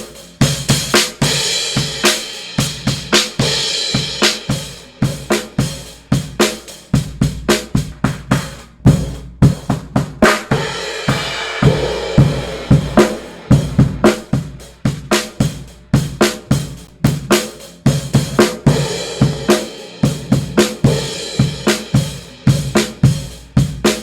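A drum kit played in a steady groove: kick, snare, hi-hat and cymbals. It is recorded on a single mono front-of-kit microphone and heard through the EQ of a vintage Sphere Eclipse C console.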